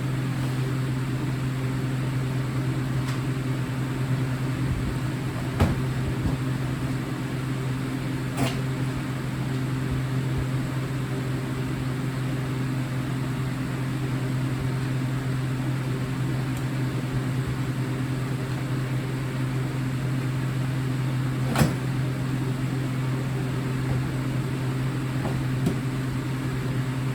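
A steady low hum, with three short sharp clicks: about six seconds in, about eight and a half seconds in, and near twenty-two seconds.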